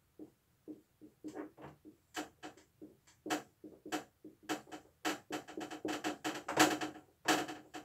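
Marker squeaking and scratching on a whiteboard in short, irregular writing strokes, each with a slight squeal. The strokes come faster and louder in the second half.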